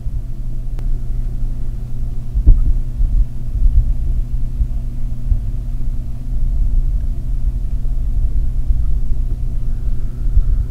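Loud, uneven low rumble buffeting the microphone, with a couple of faint clicks.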